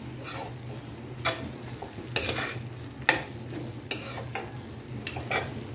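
A spatula scraping and stirring a mushroom, sweet corn and spring onion sauté around a black kadai, about one stroke a second, over a faint sizzle.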